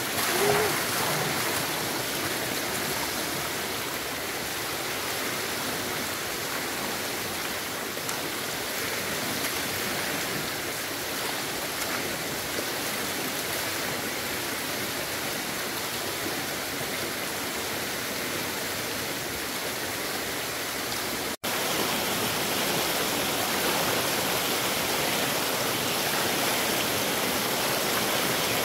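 Stream water rushing steadily, with a momentary break about three-quarters of the way through.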